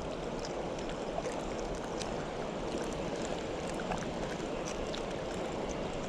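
Steady rush of flowing water, like a stream or current running along the shore, with a few faint clicks.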